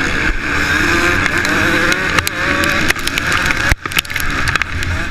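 Honda CRF450's single-cylinder four-stroke engine revving hard under race throttle, the pitch rising and falling, with heavy wind buffeting on the helmet microphone and sharp knocks from the bike over bumps. The engine note drops out sharply for an instant about four seconds in.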